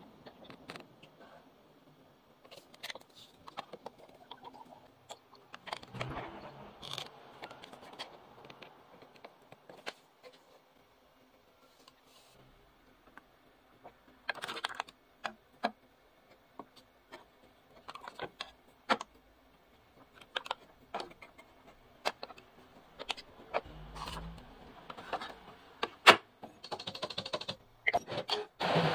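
Scattered plastic clicks and taps from ink bottles and the flip-up fill-port caps of a Brother MFC-T4500DW ink tank printer being handled during refilling. Near the end the printer gives a short whir as it begins its initial system setup.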